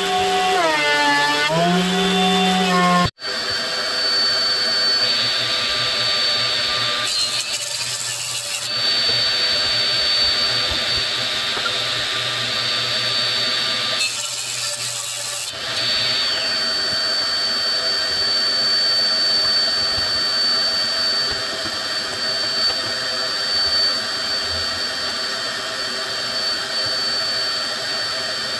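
A benchtop thickness planer runs with its motor pitch dipping and recovering as curly maple feeds through. About three seconds in it cuts off sharply. After that a table saw runs steadily with a high whine, and twice the sound turns rougher for a second or so as the blade cuts through a curly maple cutting board.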